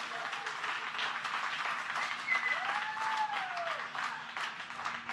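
A room full of people applauding, with one voice letting out a long cheer that rises and falls about two and a half seconds in.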